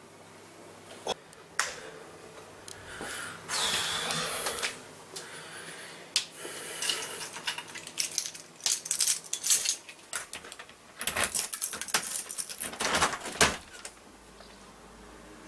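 Clicks, rattles and rustles of a person moving about and handling things, with keys jangling and a front door being opened; the clattering is densest in the second half.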